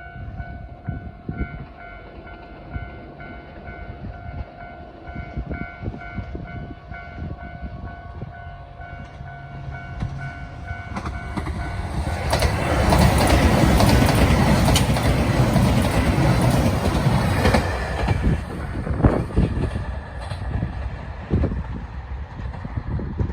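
Japanese level-crossing warning bells ringing in a steady repeating clang. About halfway through, a JR Shikoku 2700 series diesel limited express passes loudly, its rumble and wheel clatter over the rail joints swamping the bells for several seconds before easing off.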